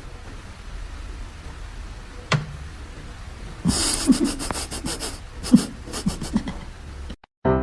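An animal panting: quick, noisy breaths start about halfway through, with a few short low grunts among them, over a steady low hum.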